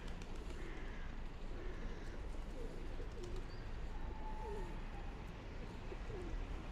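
Feral pigeons cooing, several short low coos in the second half, over a steady low outdoor rumble.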